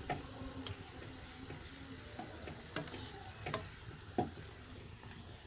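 Puris deep-frying in hot oil in a steel kadai, a steady sizzle, with a few sharp clicks as the wire skimmer works the puris in the pan.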